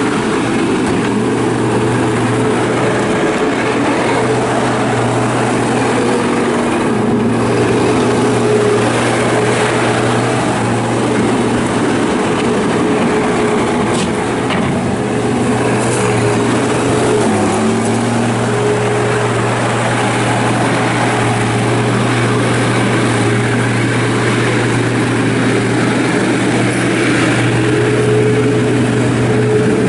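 John Deere CT332 skid steer's diesel engine running steadily at a constant speed, its pitch sagging briefly about halfway through before recovering.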